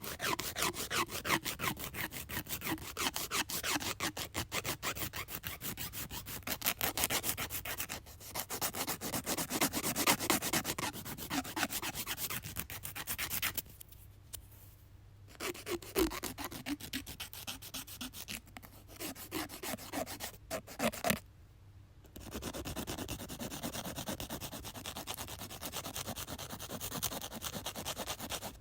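A nail being filed: quick rasping strokes back and forth, several a second, with two short pauses, one about halfway through and one about two-thirds through. The strokes are softer and more even near the end.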